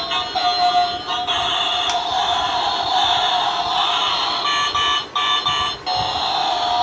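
Electronic music and sound effects from a toy transforming robot car's small built-in speaker, tinny and shrill, as the car unfolds into a robot. The sound breaks off briefly twice near the end.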